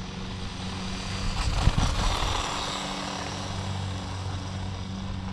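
Altair Bravo 1/16 RC monster truck's brushed electric motor and drivetrain running at full throttle on a 3S LiPo, with a high whine and tyre noise on wet pavement, loudest about two seconds in. A steady low hum runs underneath.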